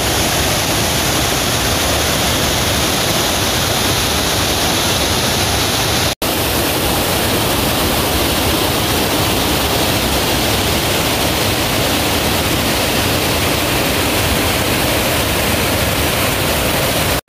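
Swift, shallow mountain river rushing over a bed of pebbles and rocks: a steady, full rushing noise, broken by a momentary dropout about six seconds in.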